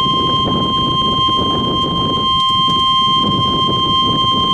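NOAA Weather Radio warning alarm tone: a single steady high beep at about 1050 Hz, the signal that an urgent warning broadcast, here a tornado warning, is about to follow. It sounds over a loud, even low rushing noise.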